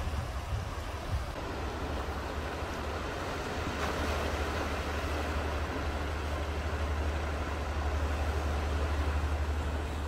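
Sea water washing and swirling in over rocks along a rocky volcanic shore, with a steady low rumble underneath.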